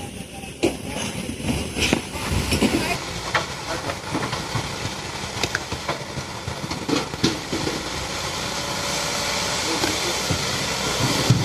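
Excavator loading stone into a dump truck: machinery running under scattered knocks and clatter of rock, with a hiss building over the last few seconds.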